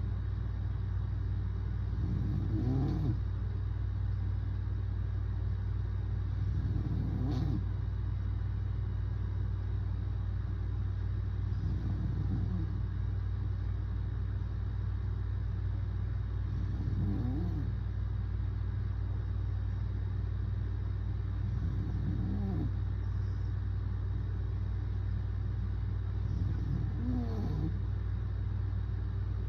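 A man snoring in sleep, six short snores at an even pace of about one every five seconds, over a steady low hum.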